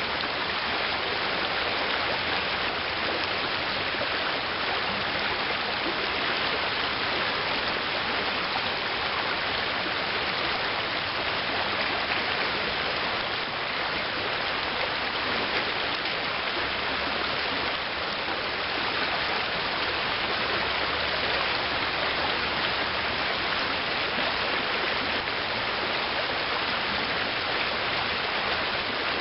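Steady rushing of a shallow river's current running over a gravel riffle.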